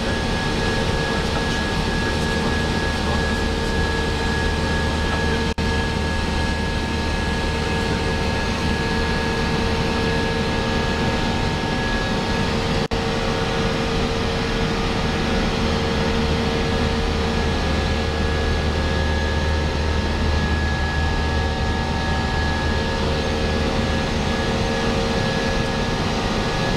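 Airbus A319 flight-deck noise in flight: a steady rush with a low hum and a few steady tones beneath it. It dips out for an instant twice.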